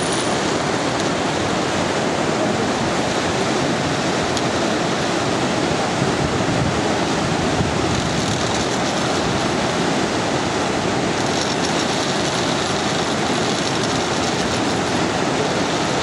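Steady rushing of a whitewater river running through a rocky gorge.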